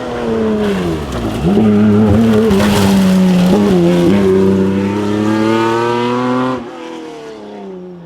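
Rally car engine at high revs. The revs fall away for about a second, then the engine picks up and pulls hard, with a few brief breaks in pitch at gear changes and the revs climbing steadily, before the sound cuts off suddenly near the end.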